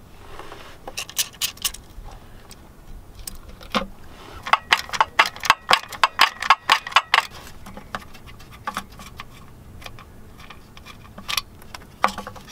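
A socket ratchet clicking in quick runs as 10 mm bolts are wound out of a car's plastic starter inspection cover, with the longest run about halfway through.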